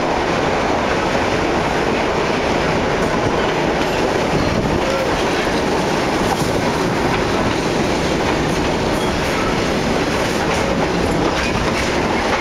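Hershey electric railcar running along the track, heard from inside the carriage with its windows open: a loud, steady rumble of wheels on rail with faint irregular clicks.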